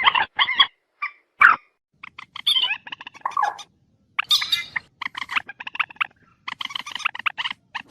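Trích ré, a rail-family waterbird, giving harsh repeated calls. A few separate notes come first, then longer phrases, then a fast run of short notes near the end.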